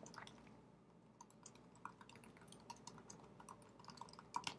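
Faint computer keyboard typing: irregular single key clicks, with a quicker run of keystrokes near the end.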